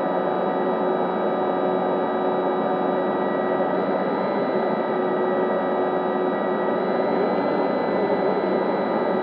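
Brushless electric motor and propeller of an FMS P-51D Mustang RC plane running steadily, heard from an onboard camera: a steady multi-tone whine over rushing air, its pitch shifting slightly a couple of times.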